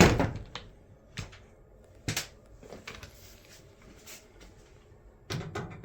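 Scattered light clicks and knocks of screws and a screwdriver being handled against a dryer's sheet-metal cabinet while front-panel screws are taken out, with a louder clatter near the end.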